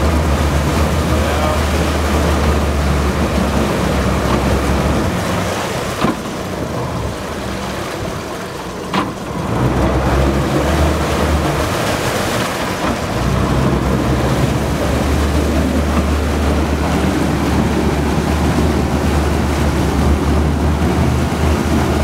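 Four Mercury Verado 300 hp outboards running at low speed while joystick piloting moves the boat, with propeller wash churning the water behind them. Their low drone eases off for a few seconds about a quarter of the way in, and briefly again past the middle, then picks back up; two short clicks sound in the quieter stretch.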